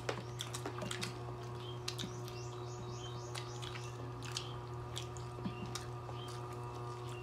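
Close-up eating sounds: people chewing crispy fried chicken and rice by hand, with frequent small wet clicks, lip smacks and crunches, over a steady low hum.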